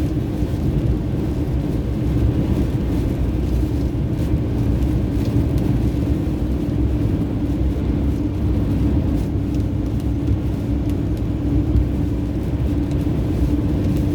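A car on the move: a steady low rumble of engine and road noise with a constant hum.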